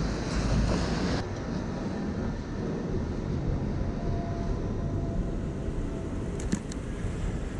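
Rainy city street ambience: a steady low rumble of traffic, with a louder rush of noise in the first second and a couple of sharp clicks near the end.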